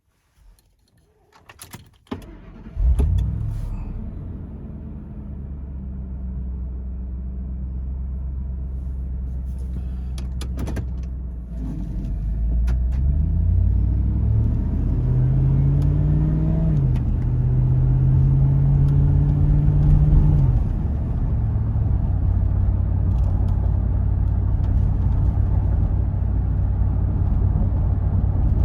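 Supercharged 5.4-litre V8 of a 2004 Ford F-150 SVT Lightning: a few clicks, then the engine cranks and starts just under three seconds in with a brief flare and settles to a steady low idle. About twelve seconds in the engine speed rises, is held, and drops back near twenty seconds to a steady idle.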